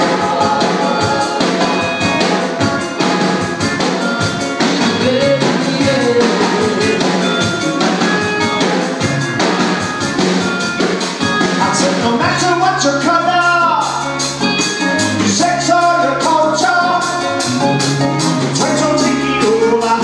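Live band playing a dub-reggae song through a PA: a steady drum beat and bass guitar, with sung vocals over the top and the bass line sitting heavier in the second half.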